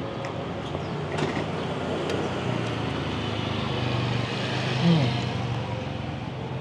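Road traffic going past: a vehicle passes, swelling through the middle and fading, over a steady low hum. A brief voice comes near the end.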